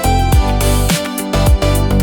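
Background music with a steady beat: punchy bass kicks about twice a second under sustained melodic notes.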